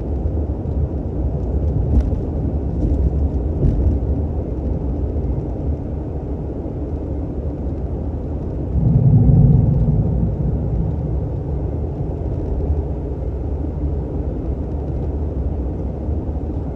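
Dodge Ram 3500 pickup cruising on the highway, heard from inside the cab: a steady low rumble of engine and tyre noise. The rumble swells louder for a second or two about nine seconds in.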